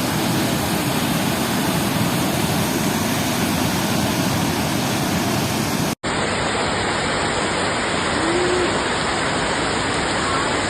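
Steady rushing of fast floodwater in a swollen river. About six seconds in it cuts abruptly to another stretch of the same kind of rushing.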